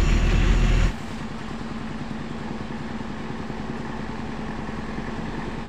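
Mitsubishi L300 pickup's diesel engine. For about the first second there is a loud low rumble of the truck driving, heard from inside the cab. It then drops abruptly to a quieter, steady idle with a steady low hum.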